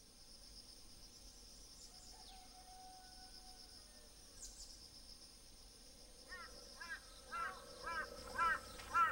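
Outdoor summer ambience: a steady high-pitched insect drone, with a bird starting a run of short, repeated calls about six seconds in, roughly two a second, which are the loudest sounds.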